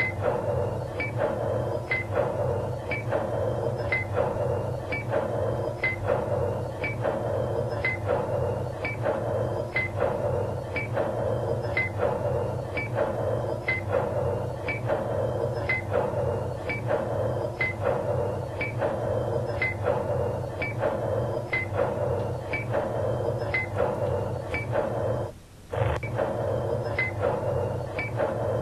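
Background music with a steady beat, about two beats a second, that cuts out for a moment near the end.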